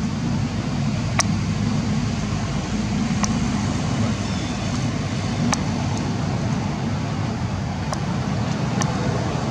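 Steady low outdoor rumble, with a few sharp clicks scattered through it.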